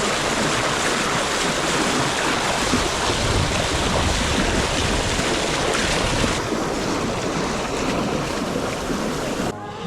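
Wind buffeting the microphone over the rush and wash of waves, as on a sailing boat at sea; the noise cuts off suddenly near the end.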